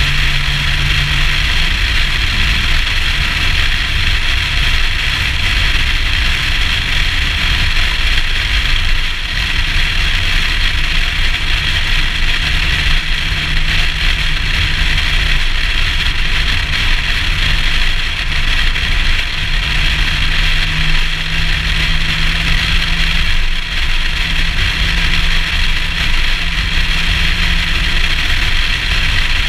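Nissan Skyline ER34 cruising at steady speed, heard through a camera mounted outside the car: steady wind rush and road noise, with a low, steady engine drone underneath that is clearest in the second half.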